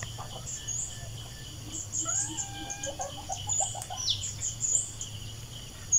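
Small birds chirping: many short, high chirps scattered throughout, with one longer falling call about four seconds in.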